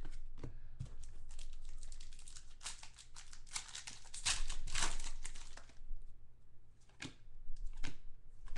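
Crinkling and tearing of a trading-card pack's shiny plastic wrapper as it is ripped open by hand, loudest in the middle. Lighter rustles and clicks follow as the cards are handled.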